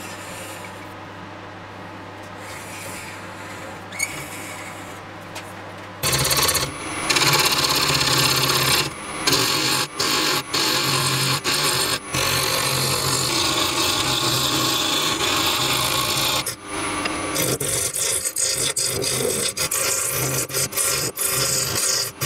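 Wood lathe running with a steady low hum. About six seconds in, a turning tool starts cutting the spinning elm burl and epoxy resin blank: a loud, rough shaving sound, broken by several short pauses as the tool comes off the work.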